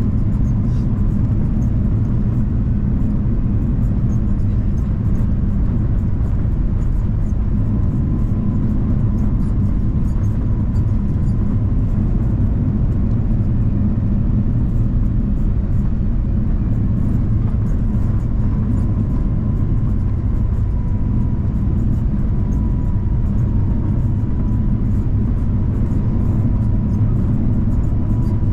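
Steady low cabin rumble inside an Airbus A350-900 heard from a window seat over the wing, with a faint steady whine on top.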